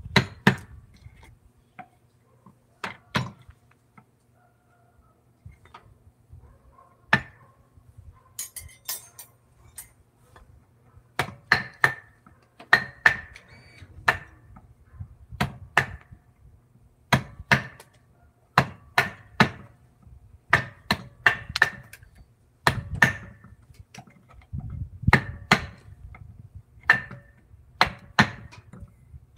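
Woodcarving chisel driven by mallet blows, sharp knocks with a short ring. The blows come sparsely at first, then from about ten seconds in steadily in quick pairs and triplets.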